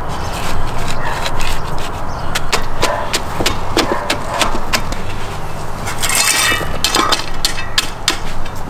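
Garden rake's metal tines scraping and clicking through rocky soil beside a landscape timber, in many short strokes, with one louder, harsher scrape about six seconds in.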